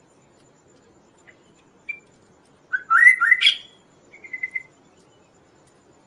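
Chestnut-capped babbler (kaso-kaso) singing: a short note, then about three seconds in a quick, loud run of rising whistled notes, followed by a shorter trilled note.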